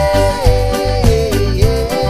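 Upbeat background music with a steady beat. Long held melody notes slide down in pitch about halfway through.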